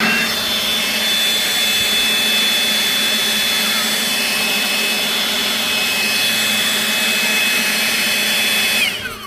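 Leaf blower running steadily with a high whine over its rushing air. About nine seconds in it winds down, the whine falling in pitch.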